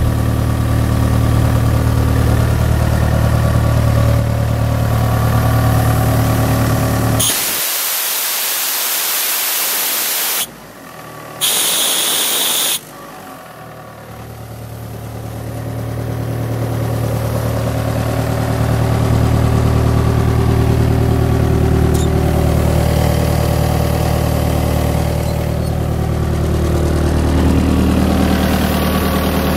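Diesel engine of a towable Rotair D185T41 air compressor running steadily at idle. About seven seconds in it gives way to a loud rushing hiss for a few seconds, then the engine hum comes back, rising in loudness, and runs steady again.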